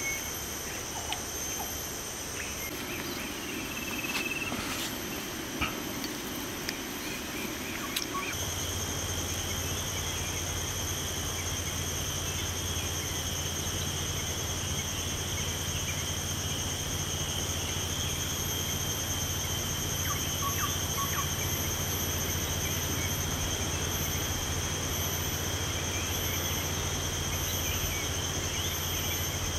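Steady chorus of insects, a continuous high buzz, with a few faint clicks. About eight seconds in a steady low hum comes in under it.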